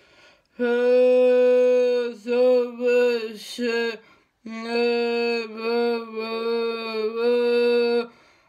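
A young woman singing unaccompanied, in long held notes broken by short pauses for breath.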